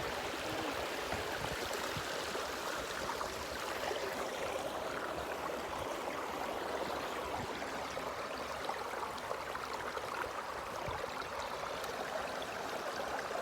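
Steady rushing of water, an even wash with no pauses.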